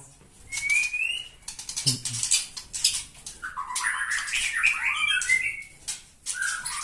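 White-rumped shamas (murai batu) calling: a run of sharp, high chirps and clicks, with a warbling burst of song about three and a half to five and a half seconds in.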